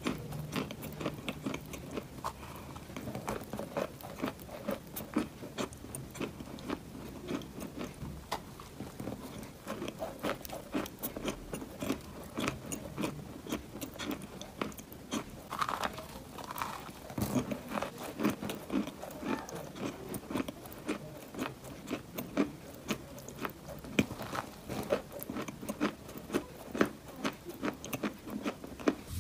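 Close-miked chewing of dry, crumbly Ural Black clay: a dense run of small crisp crunches as a mouthful is ground between the teeth, with a few louder cracks in the second half.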